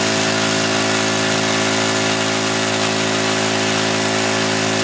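Small engine of a test suction dredge running steadily at a constant speed, driving the dredge's water flow, with a steady hum and an even rushing noise over it.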